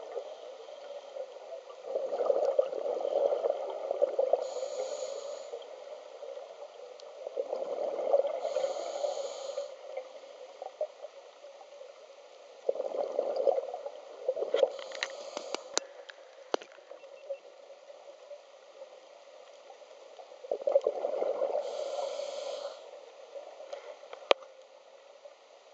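Scuba diver's breathing heard underwater through the regulator: four rounds of exhaled bubbles gurgling, about six seconds apart, each with a short hiss. A few faint clicks in between.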